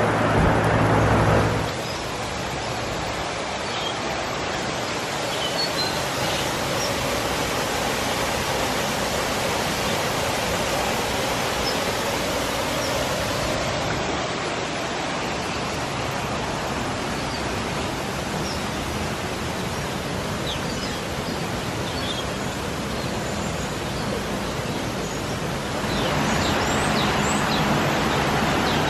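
Steady rushing background noise with faint, short high bird chirps scattered through it, the chirps coming more often and the noise getting a little louder near the end.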